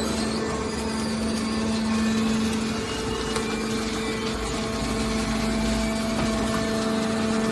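Hydraulic scrap-metal baler running with a steady hum from its motor and hydraulic pump, with a low rumble swelling briefly in the second half.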